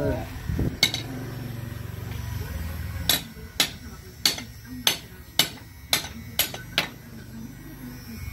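Electric hair clippers running with a low hum during the first few seconds, then a run of about eight sharp taps, roughly two a second.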